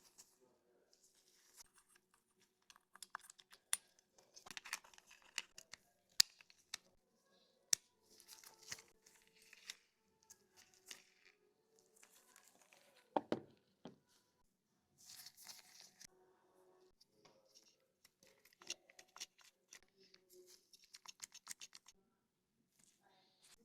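Faint handling noises from working on a baitcasting reel: scattered sharp clicks and short rustling, scraping sounds, with one duller knock about thirteen seconds in.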